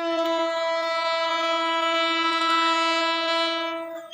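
CC201 diesel locomotive's air horn sounding one long, steady blast with a deep, ship-like tone; it stops just before four seconds.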